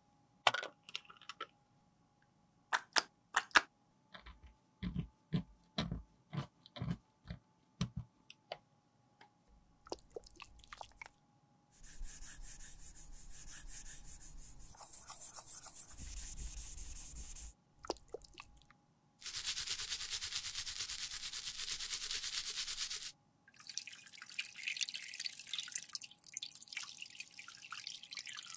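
Close-up clicks and scrapes of a metal tool prying old highlighter powder out of a compact's metal pan. Then a brush scrubs the emptied pan in soapy water, and the compact is rinsed under running tap water, a steady rush with bubbly crackle near the end.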